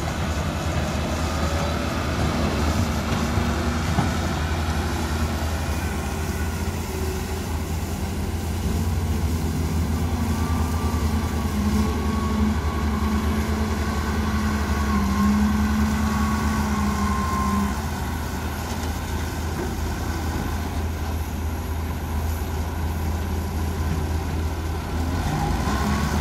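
Heavy diesel machinery at work: the TCM 50B wheel loader's engine runs with a steady low drone, its pitch rising and falling as the machine loads, with other heavy diesel engines running alongside.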